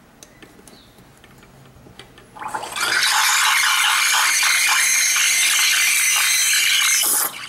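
Kalley espresso machine's steam wand frothing cold milk in a mug: after a few faint clicks as the steam knob is turned, a loud steady hiss starts about two and a half seconds in and stops suddenly near the end.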